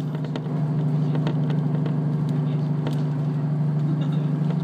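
Cabin sound of a KiHa 54 diesel railcar under way: a steady diesel drone that grows a little louder about half a second in, with scattered clicks and rattles from the running train.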